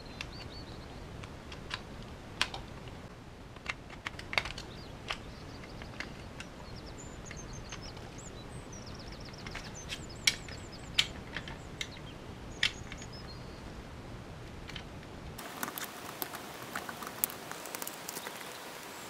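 Plastic and small metal parts of an RC car kit being handled and fitted together by hand, giving scattered sharp clicks. Over the last few seconds a screwdriver turns a self-tapping screw into the plastic suspension mount, a denser run of scratchy clicking. Faint bird chirps in the background in the middle.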